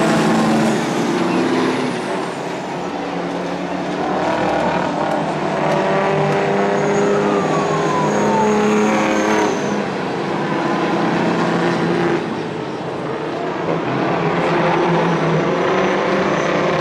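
Several racing semi-truck diesel engines running hard on a dirt oval, their pitch rising and falling as the trucks power through the turns and pass by. A falling whine is heard about halfway through.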